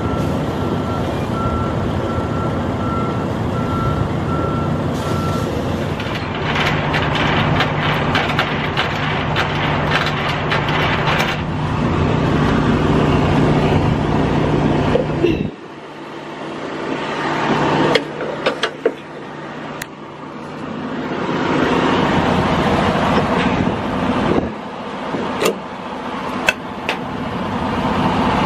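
Semi-truck diesel engine running with a reversing alarm beeping at a steady pace for the first five seconds. About halfway through the engine sound cuts out, and sharp metallic clicks and clanks follow as hands work the trailer's fittings.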